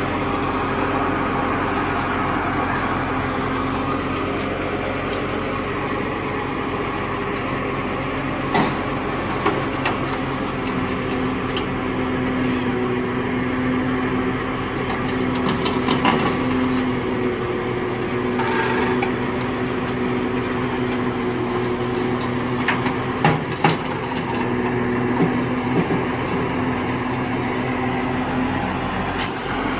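A motor vehicle's or machine's engine running steadily, with a few short, sharp knocks.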